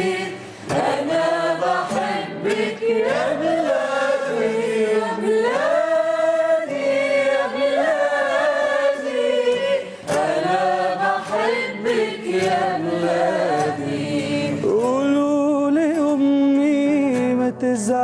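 Group of voices singing together in chorus, accompanied by an acoustic guitar.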